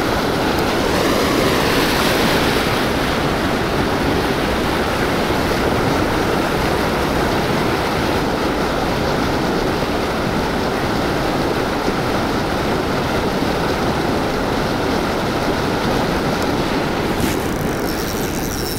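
Turbulent white water rushing and churning below a river weir, a steady, loud, even noise.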